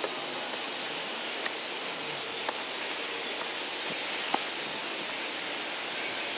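Post hole digger's blades jabbing into the soil, with a sharp clink about once a second, five in all, over a steady background hiss.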